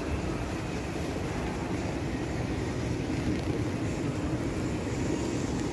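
Steady low rumble of a large shopping mall's indoor background noise.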